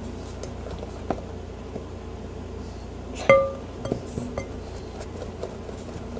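A utensil clinking and scraping against a bowl as glue is stirred into slime, with scattered light taps and one sharp ringing clink about three seconds in.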